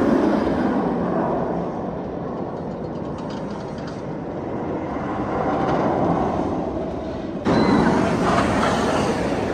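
Steel roller coaster train running down its track and through the course, a steady rushing rumble heard from below. About seven and a half seconds in, the sound cuts abruptly to louder crowd noise.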